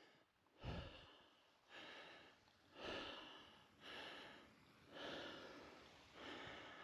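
A person breathing hard while climbing a steep staircase of stone steps, faint, with about one heavy breath a second, six in all.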